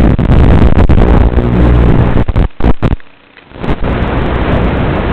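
FPV racing quadcopter motors buzzing loudly. About two and a half seconds in the buzz breaks off, with a few sharp knocks and a short dropout to near silence, and then only a steady hiss remains.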